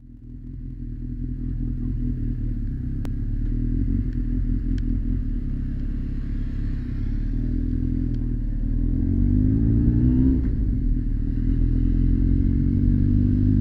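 Honda X4's inline-four engine running under way at low road speed, fading in at the start. From about eight seconds in its note climbs as the bike accelerates, drops back at a gear change just after ten seconds, then runs steady.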